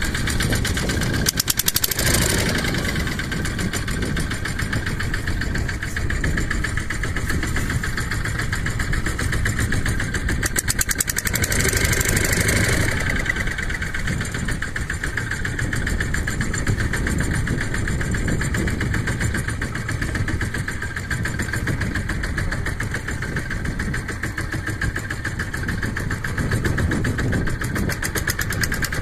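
Boat engine idling steadily with an even, rapid beat, with louder stretches of noise about two seconds in and again around twelve seconds.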